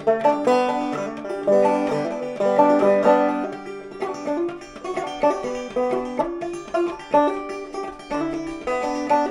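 Five-string banjo played solo in clawhammer style with drop-thumb, a quick, steady run of plucked melody notes, each ringing briefly.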